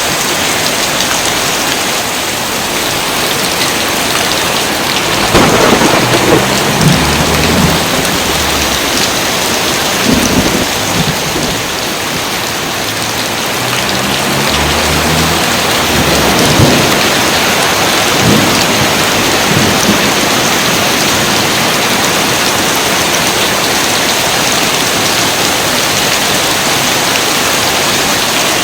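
Steady heavy rain with thunder: long rolling rumbles about five and fourteen seconds in, and sharper claps around ten, sixteen and eighteen seconds in.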